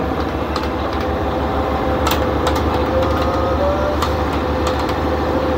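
Fishing boat's diesel engine running steadily, an even mechanical hum, with a couple of sharp clicks about two and four seconds in.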